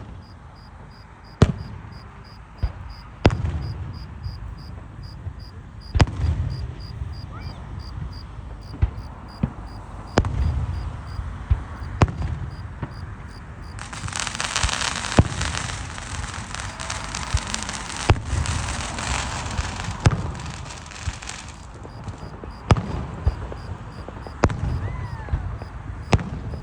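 Fireworks going off: scattered sharp bangs, each followed by low rumbling, with a dense crackling burst lasting about seven seconds midway and a short rising whistle near the end. Crickets chirp steadily behind it.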